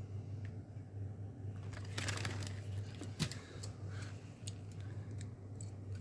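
Packaging crinkling and tearing for about a second as the pliers are taken out, then a sharp click and a scattered run of small clicks from the metal pliers being handled, over a steady low hum.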